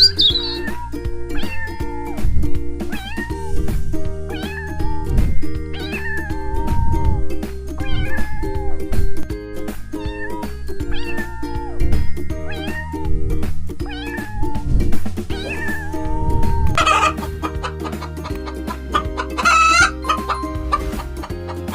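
A cat meowing over and over, short calls every second or two, over background music with a steady beat. Near the end come louder, higher-pitched animal calls.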